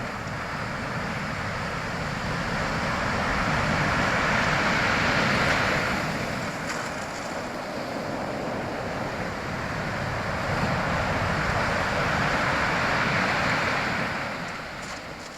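Strong sea waves breaking on the shore: the surf swells twice, about four seconds in and again around eleven to fourteen seconds, then eases off near the end.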